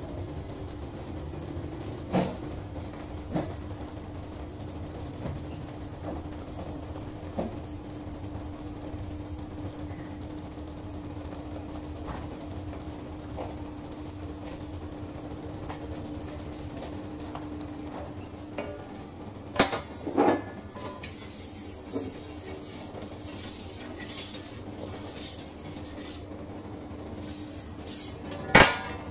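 Kitchen clatter at a pizza stall: scattered clicks and knocks of utensils and cookware over a steady low hum, with the loudest knocks about twenty seconds in and just before the end.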